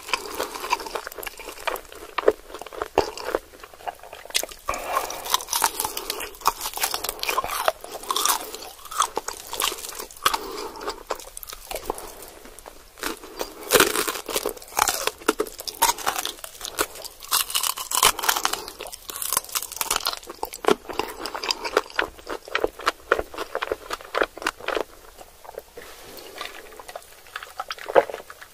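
Close-miked eating of crispy fried chicken with melted cheese: crunching bites through the fried coating, then chewing with wet mouth sounds, in dense, irregular crackles. Near the end, a drink from a glass through a straw.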